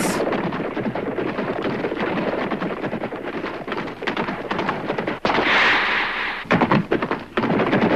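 Hooves of several horses galloping at full speed, a fast, dense drumming of hoofbeats. About five seconds in, a brief rushing hiss breaks in, then the hoofbeats resume.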